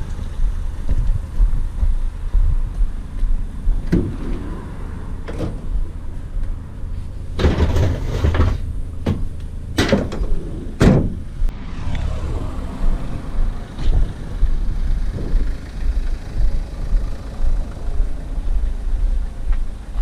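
A vehicle's engine running with a steady low rumble, and a run of loud metal clanks and knocks near the middle, as of scrap metal being handled or shifting in the load.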